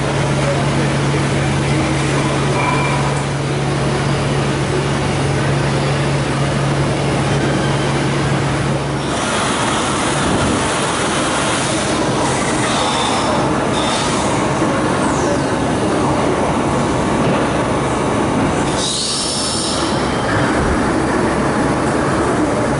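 Okuma MACTURN 30 multi-axis CNC turning centre running, a loud steady mechanical noise. A low hum under it stops about nine seconds in and the noise changes, with a short louder rush later on.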